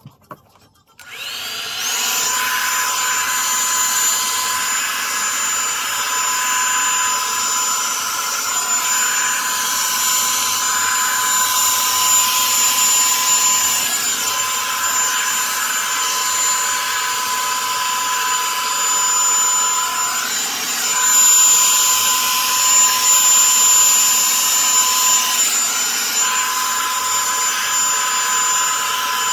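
Revlon One-Step Volumizer hot-air brush switched on with a click, its motor spinning up over about a second into a steady high whine and rush of air. It runs on with slight shifts in tone.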